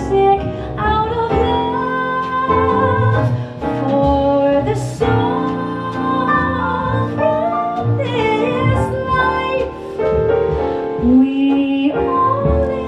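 A female jazz vocalist singing a slow ballad in long held notes with vibrato, over piano accompaniment.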